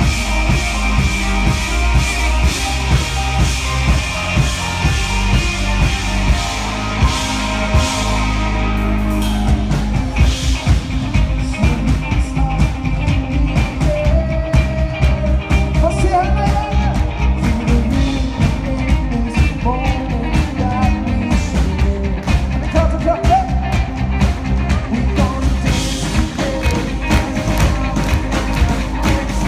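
Live rock band playing: drum kit, electric guitars and keyboards at full volume, with a sustained keyboard chord over steady bass for the first several seconds before the drums get busier. A man's singing comes in about halfway through.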